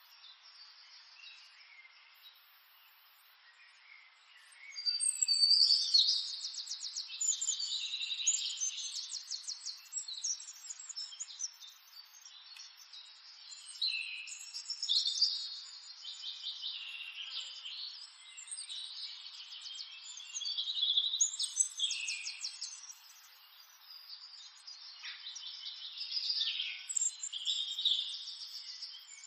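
Birds chirping and singing, in quick trilled phrases of a few seconds that come back every several seconds, with short sliding notes between them.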